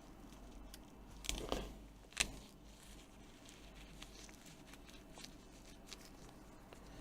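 Plastic opening picks being worked under a tablet's glued glass screen, prying it away from its adhesive. Faint scattered ticks, a short crunchy scrape about a second in, and a sharp click just after two seconds.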